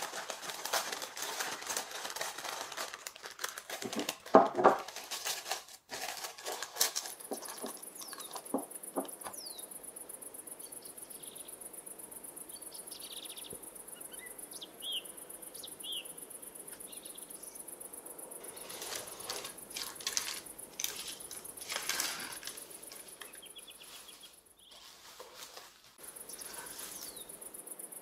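Hands dusting flour and handling the dough in a glass bowl, rustling and scraping, with a sharp knock about four seconds in. From about seven seconds, crickets chirp steadily in a very high, finely pulsing trill, with a few short bird chirps.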